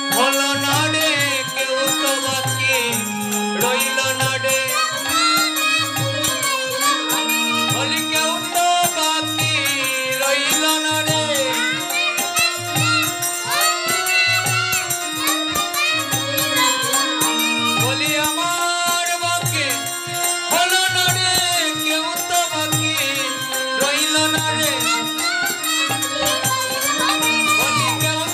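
Bengali kirtan music: a devotional melody sung with wavering ornaments over a khol barrel drum beating a deep stroke about once a second, with steady jingling from small hand percussion.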